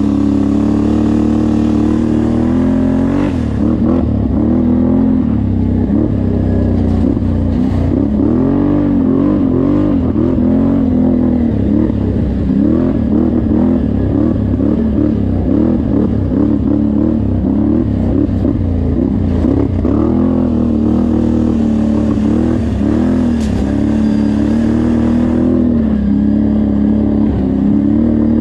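Can-Am Renegade 850 ATV's V-twin engine running on a trail ride, its pitch swinging up and down constantly as the throttle is worked. It is steadier for the first few seconds and again near the end.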